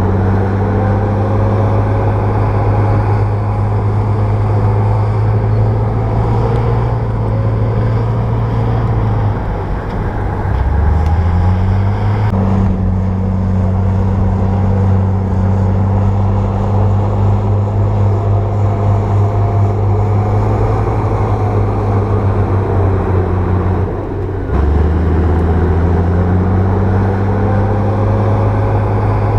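Bulldozer's diesel engine working hard, a steady low drone; twice, about ten seconds in and again later, it drops in speed and then pulls back up.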